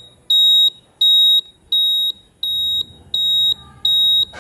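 Quiz countdown-timer sound effect: a string of short, high-pitched electronic beeps, evenly spaced about 0.7 seconds apart, six of them in a row.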